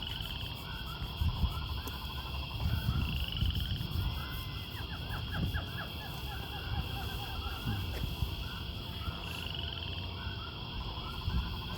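Small animals calling outdoors: many repeated short chirps and rapid trills, over a low uneven rumble.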